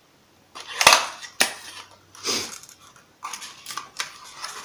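Handling noise from a small plastic fidget cube being picked up and turned over in the hands: a knock about a second in, a sharp click soon after, then a rustle and several lighter clicks and taps.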